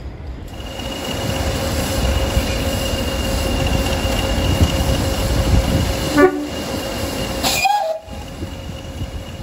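English Electric Class 20 diesel locomotive running with a steady low rumble and a steady whine. About seven and a half seconds in comes a short horn blast, a departure warning.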